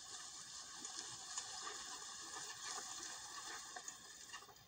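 Faint, steady rustling hiss from an animated film's soundtrack as a tow truck creeps through tall grass, played back through a computer speaker.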